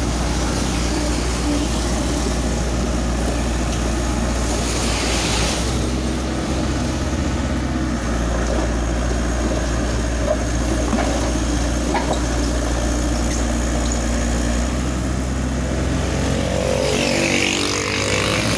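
Heavy diesel engine of an excavator running steadily, with short bursts of hiss about five seconds in and again near the end. Near the end a second engine note slides in pitch.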